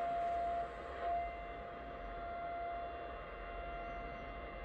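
Yaesu FTdx10 shortwave receiver audio in AM mode: a steady whistling tone signal over band hiss. The tone drops out about half a second in, flicks back briefly about a second in, and then gives way to fainter steady tones as the receiver is tuned across the band.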